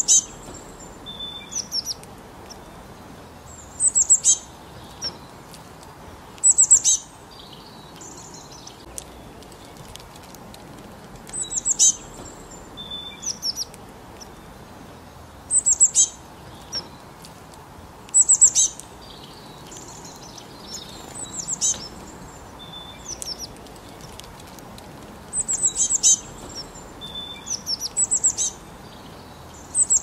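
Small songbirds singing: short clusters of high-pitched chirps and down-sweeping notes, repeated every few seconds.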